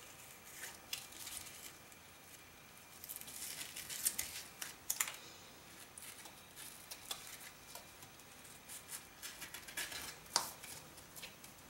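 Faint rustling and scraping of hands folding and smoothing glitter-vinyl-covered grosgrain ribbon against a flat mat, with a few sharper crisp ticks about four to five seconds in and again near the end.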